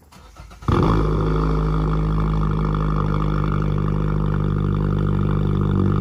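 A loud, steady low drone with many overtones starts abruptly under a second in and holds level.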